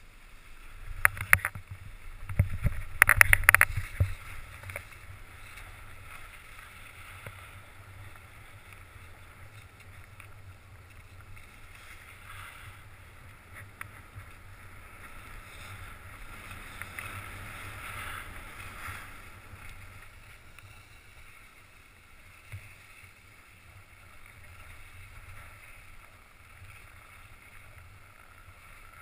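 Skis sliding and scraping over packed snow as a skier runs downhill, a steady swishing hiss. A few loud knocks and scrapes come in the first four seconds, as the run starts.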